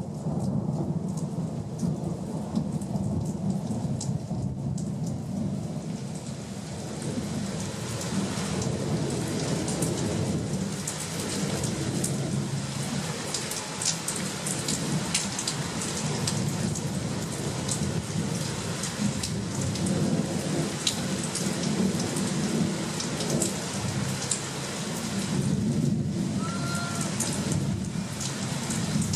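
Thunderstorm: heavy rain falling and pattering on surfaces, with thunder rumbling low and steady underneath.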